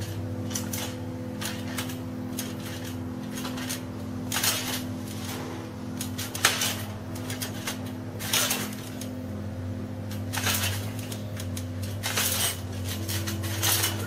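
Singing bowls ringing with several steady overlapping tones, with a short noisy swish about every two seconds.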